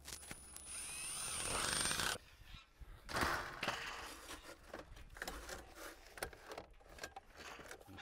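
Cordless drill driving a fastener into metal barge trim on a roof edge, a high motor whine lasting about two seconds. After it come scattered clicks and knocks as the metal roofing pieces are handled.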